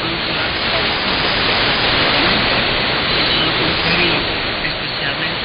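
Weak shortwave broadcast on 9955 kHz heard through a software-defined radio receiver: steady hiss and static, with faint speech buried under the noise.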